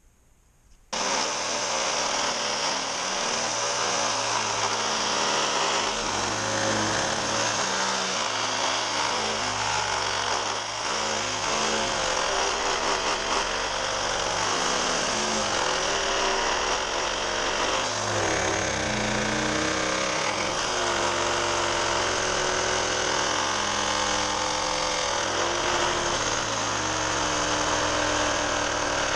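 SnapFresh cordless reciprocating saw running while trimming tree branches. It starts abruptly about a second in and then runs steadily, its motor pitch shifting now and then.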